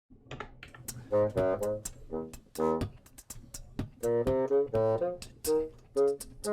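Ensemble music with a horn section of saxophones and trombone playing short, punchy notes in rhythm over sharp percussive hits.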